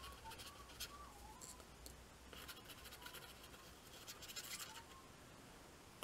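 Faint scratchy rustling of fine model-railroad ballast grains being sprinkled from a plastic spoon onto the track, in several short spells.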